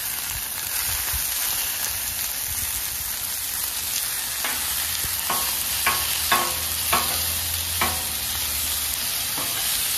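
Garlic parmesan butter sizzling as it melts over chicken wings on a hot Blackstone steel griddle. In the second half, several short scrapes and taps of a metal spatula on the cooktop as the wings are turned in the butter.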